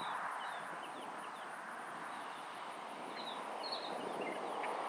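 Urban outdoor ambience: a steady hum of distant traffic, with a high, pulsing insect buzz and scattered short bird chirps.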